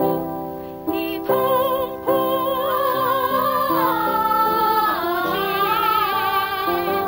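A woman singing a slow melody with vibrato on long held notes over instrumental accompaniment, from a 1970s–80s amateur army-song recording. There is a short break about a second in before the singing resumes.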